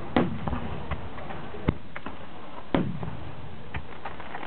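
Aerial firework shells bursting in a starmine barrage: two loud booms about two and a half seconds apart, each with a rumbling tail, and a sharp single pop and smaller cracks between them.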